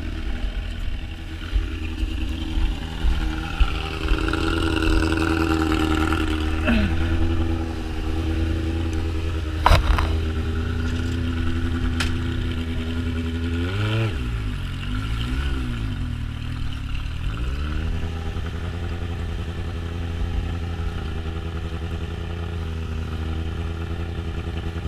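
Sport motorcycle engine running at low revs while the bike is eased along through snow. About fourteen seconds in, its pitch swings down and back up a couple of times. There is one sharp knock about ten seconds in.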